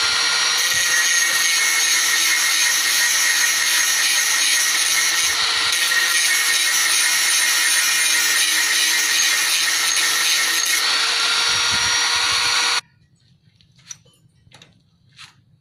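Handheld electric angle grinder running steadily as it grinds down the edge of a metal ignition part, a steady whine over grinding noise. It cuts off suddenly about thirteen seconds in, leaving a few faint clicks of parts being handled.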